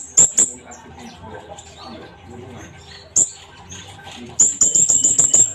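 Kolibri ninja (sunbird) calling with sharp, very high chips: a few at the start, one about three seconds in, and a rapid run of about eight near the end.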